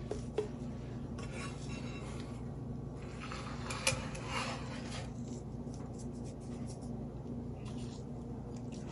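Quiet kitchen handling while seasoning a raw beef roast by hand: a couple of light clinks from a small ceramic bowl of salt and pepper and soft sprinkling, over a steady low hum.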